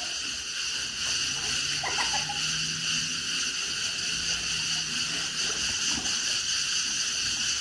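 Pool water splashing and sloshing as children paddle and push an inflatable swim ring through it, over a steady hiss.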